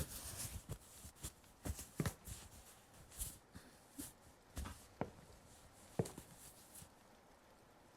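Soft handling and movement noises from a person in a small room: a dozen or so scattered taps, knocks and rustles at irregular intervals, with no steady sound beneath them.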